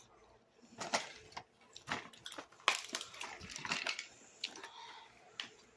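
Irregular clicks, taps and crinkles of small objects, likely plastic toys or packaging, being handled.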